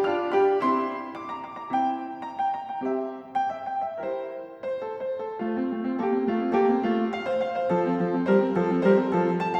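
Background music: a light piano tune of short melodic notes.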